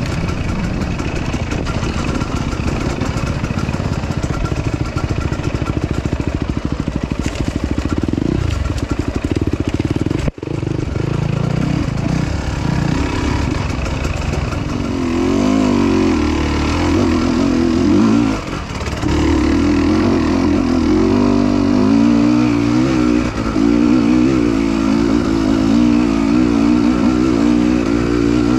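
Dirt bike engine running under riding load, its pitch rising and falling as the throttle is worked, with a momentary dropout about ten seconds in.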